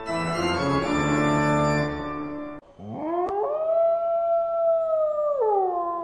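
Organ music plays steady chords for about two and a half seconds and stops. After a short break a dog gives one long howl: it rises steeply, holds level, and drops in pitch near the end.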